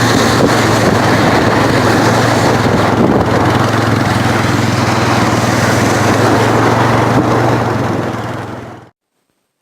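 A small engine running steadily under a loud rushing noise, fading out near the end.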